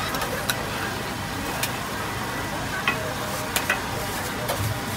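Okonomiyaki frying on a hot teppan griddle with a steady sizzle. Several sharp clicks come from a metal spatula scraping and tapping the griddle plate.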